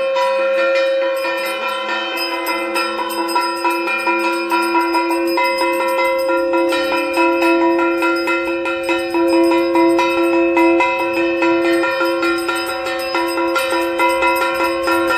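A puja bell rung rapidly and without a break, many quick strikes over a steady ringing tone.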